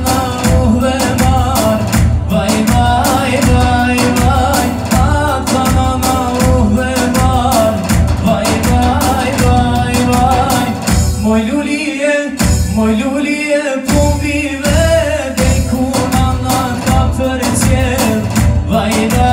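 Live Albanian pop-folk song: a man sings into a handheld microphone over an arranger keyboard's accompaniment with a steady drum beat.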